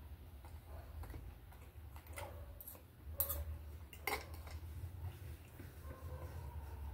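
Metal cutlery clinking against a dinner plate, a few sharp clicks with the two loudest about three and four seconds in, over a low steady hum.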